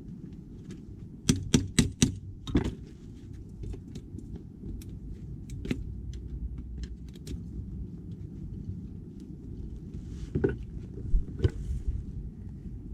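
Metal clinking and knocking of hand tools and brake parts: a quick run of four sharp knocks about a second in, then scattered light ticks, and two more knocks near the end, over a steady low hum.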